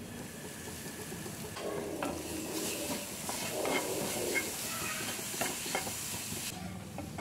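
Frying vegetables and crumbled paneer sizzling in a metal pan while a wooden spatula stirs and scrapes them, with scattered knocks of the spatula against the pan. The stirring and sizzle start about a second and a half in, and the sizzle cuts off suddenly near the end.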